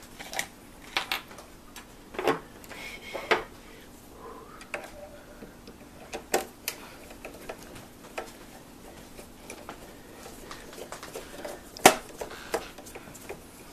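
Screwdriver work on the plastic housing of a Singer Graflex Study Mate II filmstrip viewer as its screws are put back in: scattered small clicks and knocks of metal on plastic, the sharpest one near the end.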